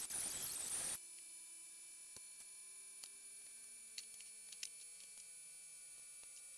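Die grinder with a cutting wheel cutting sheet steel: a loud, high-pitched cutting noise that stops abruptly about a second in. After that there are only faint steady tones and a few light clicks.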